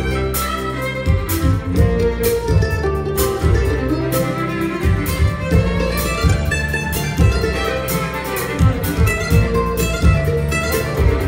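Bluegrass band playing an instrumental intro live, with a bowed fiddle carrying the melody over acoustic guitar, banjo, upright bass and cajon percussion keeping a steady beat.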